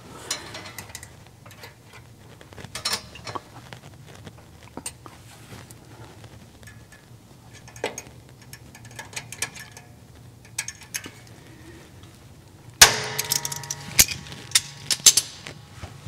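Small metal clicks and scrapes of a clutch return spring being worked onto a 1967 Camaro's clutch linkage, then a loud ringing metallic clang about thirteen seconds in, followed by several more sharp clanks.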